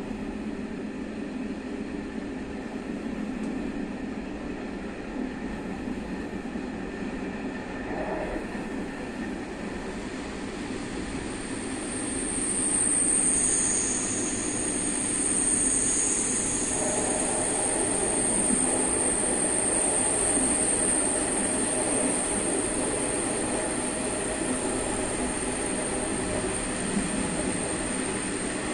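Passenger coach (BDs450) of a train rolling along the track, heard from inside the rear car: a steady rumble of wheels on rail. About halfway through, a high-pitched wheel squeal sets in and holds to the end, louder with a second squealing tone for a few seconds, typical of wheels grinding through a curve.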